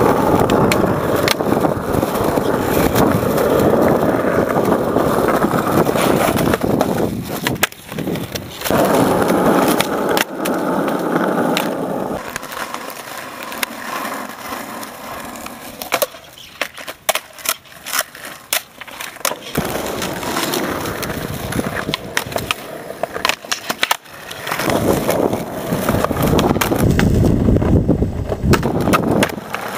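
Skateboard wheels rolling over rough asphalt with a steady rumble, broken by the sharp cracks of the tail popping and the board slapping down as flip tricks are tried. The rolling drops off through the middle, leaving mostly scattered clacks.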